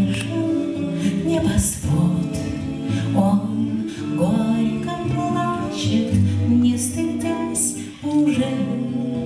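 Live bard song: a woman sings while strumming an acoustic guitar, and a man and a woman join her in vocal harmony. There is a short breath between phrases about eight seconds in.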